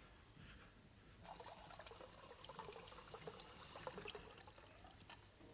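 Faint pouring of liquid, a trickle that starts about a second in and fades out about three seconds later.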